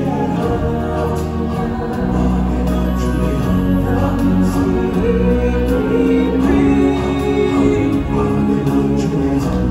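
Stage-show music: a song sung by solo singers with a choir over held, sustained chords.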